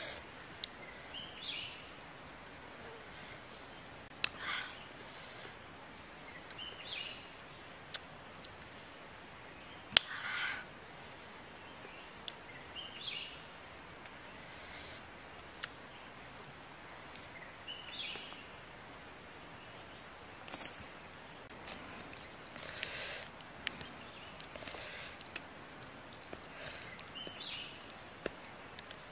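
Insects trilling in a steady, high-pitched drone, with a short chirp repeating about every five or six seconds. A few sharp clicks and brief rustles come through over it, the loudest about ten seconds in.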